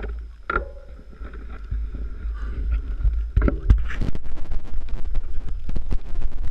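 Wind rumbling on the microphone. From about three and a half seconds in, a mountain bike rolls close by over loose stony ground, its tyres crunching on stones and the bike rattling in quick, irregular clicks.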